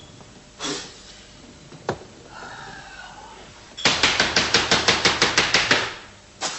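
A single sharp knock, then a loud, rapid run of knocks at about seven a second that lasts about two seconds, with one more knock near the end.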